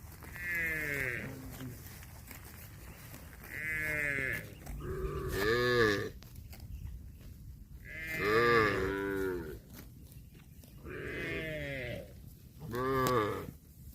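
Cattle mooing repeatedly, about six drawn-out calls that fall in pitch, with short pauses between them.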